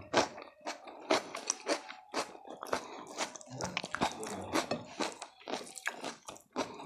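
Close-up biting and chewing of crunchy food, a quick irregular run of sharp crunches and mouth sounds.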